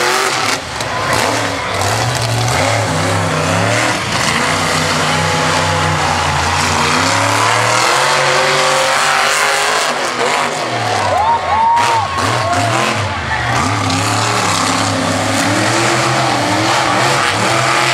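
Monster truck's engine revving hard, its pitch rising and falling as the truck drives over crushed cars and turns on the dirt track.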